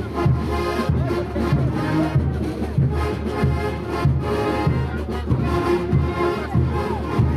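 Brass band playing morenada music with a steady, driving beat.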